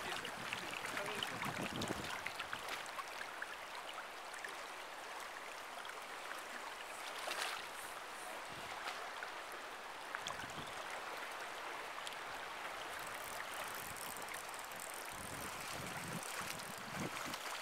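Steady rush of a shallow, fast-flowing river's current over riffles.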